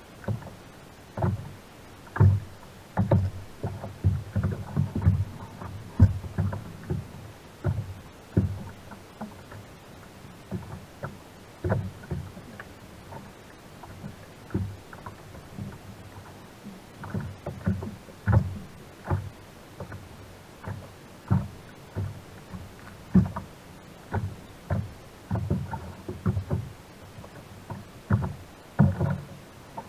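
Small waves slapping against a plastic sit-on-top kayak's hull, heard as irregular hollow thuds every second or so over a low steady wash.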